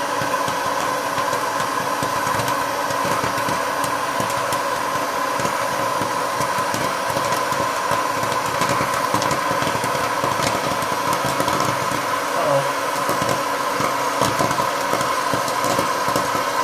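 Hot-air popcorn machine running: its fan blows with a steady hum while kernels pop now and then and popped corn is blown out of the chute.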